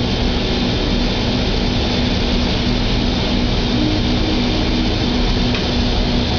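Washing machine running with its drum turning and clothes tumbling: a steady drone with a constant hum.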